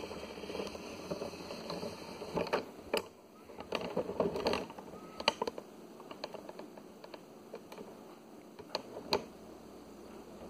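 Handling noise: scattered light clicks and taps with some rustling as equipment is adjusted and moved about, with a few sharper knocks in the first half.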